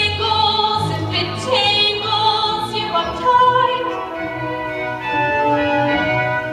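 A singer holding long notes over instrumental accompaniment, a song in a live musical-theatre performance.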